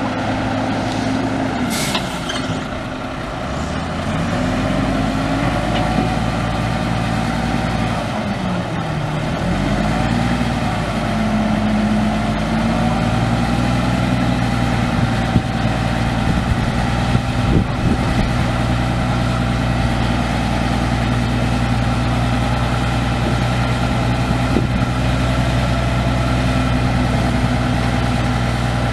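Detroit Diesel Series 60 diesel engine of a 1993 Freightliner FLD dump truck running. Its speed falls and rises again twice in the first ten seconds, then holds steady. A short air hiss comes about two seconds in.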